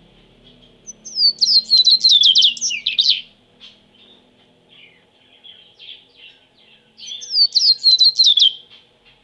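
A caged songbird singing two fast phrases of quick sweeping high notes, each about two seconds long, one about a second in and one near the end, with softer chirps from other birds between them.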